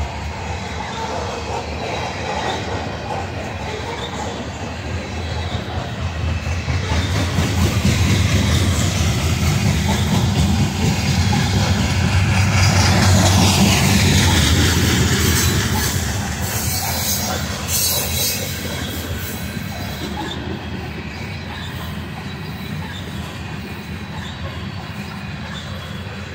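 Covered hopper cars of a freight grain train rolling past, a heavy low rumble with wheels clacking over the rail joints. Wheels squeal shrilly through the middle stretch while the rumble is at its loudest, then the sound eases to a steadier, quieter rolling.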